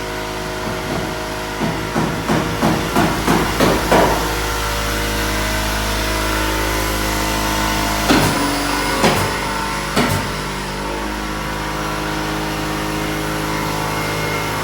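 Hammer blows on a construction site: a quick run of about nine strikes, roughly three a second, then three single louder blows about a second apart. A steady engine or machine hum runs underneath.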